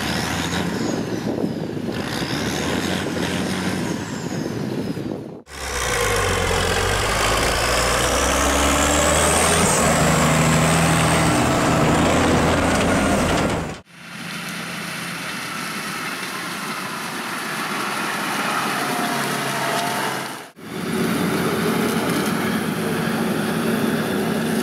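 Diesel engines of an Ursus 1634 tractor and, in the last few seconds, a New Holland combine harvester, heard in short clips cut one after another. The tractor engine is revved hard, loudest in the middle section, and a high whine rises and falls over the engine near the start.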